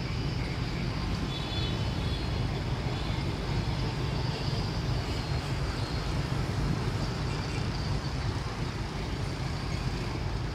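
Steady rumble of road traffic, with no single event standing out.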